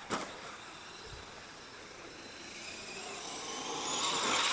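Traxxas X-Maxx RC truck driving at a distance: a faint whine from its electric motor and drivetrain over a hiss, rising in pitch and getting louder over the last couple of seconds as it speeds up. A short click sounds right at the start.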